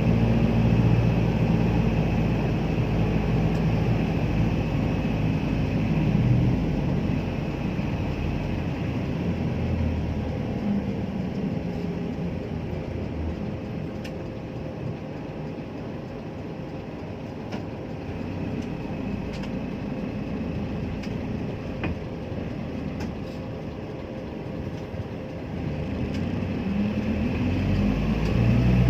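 A vehicle in motion, a steady low rumble of running and travel noise. It is louder at first, eases off through the middle and swells again near the end.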